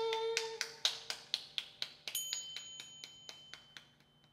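Close of a song: a held note dies away, then light percussive taps, about four a second, fade out. A small high bell or chime is struck once about two seconds in and rings on.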